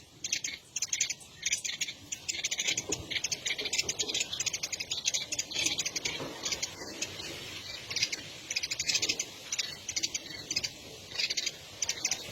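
Dense, rapid, high-pitched pulsing chirps from small animals, repeating in quick trains with brief gaps.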